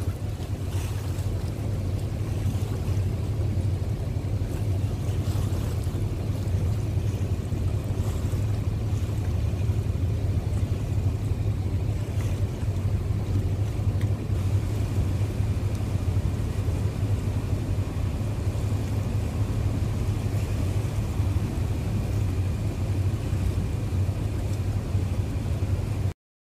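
Steady low rumble of boat engines on the river under wind buffeting the microphone, with no rise or fall, cutting off abruptly near the very end.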